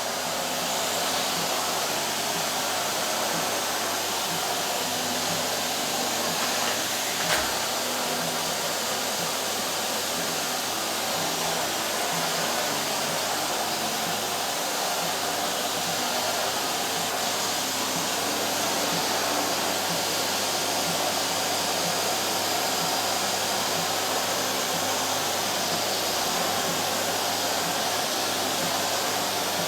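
Vacuum cleaner running steadily, with one sharp knock about seven seconds in.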